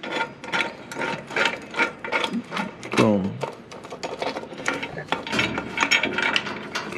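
Irregular metallic clicking and clinking of exhaust hardware as the flange bolts and adapter are fitted by hand to the exhaust joint.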